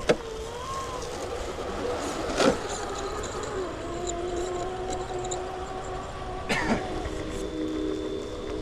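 Radio-controlled rock crawler's electric motor and gearbox whining, the pitch shifting up and down with the throttle, with three sharp knocks as the truck strikes rocks.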